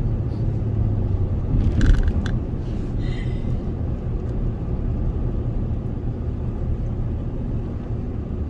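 Steady low road and engine rumble heard from inside a moving pickup truck's cab, with a brief clunk about two seconds in.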